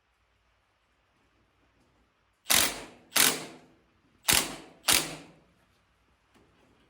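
Impact wrench fired in four short bursts, two close pairs, running down the bolt of a steering-wheel puller to press a stuck tractor steering wheel off its shaft.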